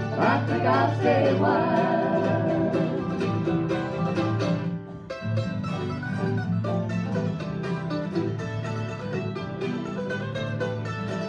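Bluegrass music: banjo and guitar picking over a steady beat, with a short dip in level about five seconds in.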